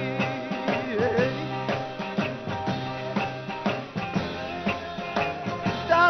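Live 1960s British beat-group rock music: a drum kit keeps a steady beat under electric guitar, with a male lead vocal singing briefly about a second in.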